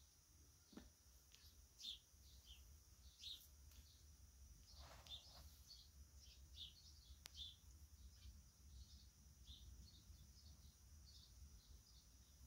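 Near silence: faint room tone with many soft, short high chirps scattered throughout, and a brief soft rustle about five seconds in.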